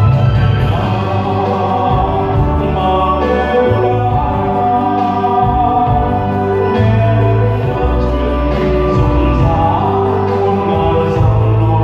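A song performed live: a male soloist with massed, choir-like voices over a loud backing track with a heavy bass line.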